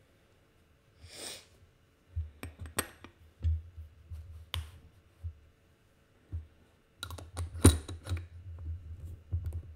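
Scattered clicks, taps and soft thumps of things being handled on a desk, with a short rustle about a second in. A denser run of louder knocks and clicks comes near the end as the sketchbook is handled.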